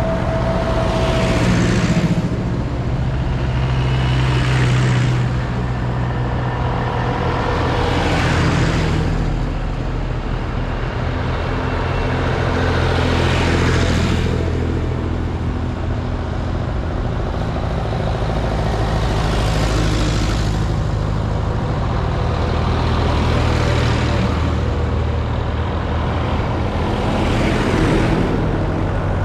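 A string of vintage tractors driving past one after another, engines running, each one swelling as it passes and then fading, every four to six seconds.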